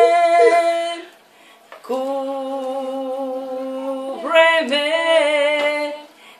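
Women singing a Spanish worship song a cappella, holding long drawn-out notes. The singing breaks off briefly about a second in, resumes on one long steady note, and the melody moves again near the end.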